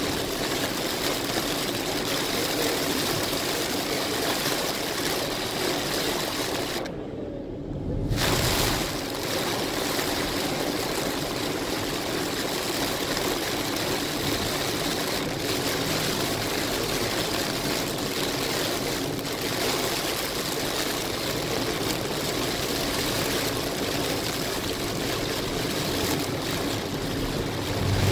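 Heavy rain beating on a moving car's roof and windshield, with tyres hissing on the flooded highway, heard from inside the car. The hiss drops away for about a second about seven seconds in, then returns.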